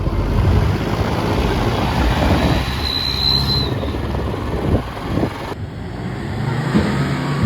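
Mahindra Scorpio fitted with an exhaust whistle tip, running with heavy engine and road noise. A brief high whistle sounds about three seconds in, and the sound changes abruptly about two-thirds of the way through.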